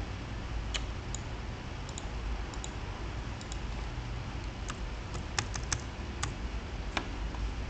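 Computer keyboard keystrokes and mouse clicks, scattered sharp clicks with a quick run of several keystrokes about five and a half seconds in, over a steady low hum.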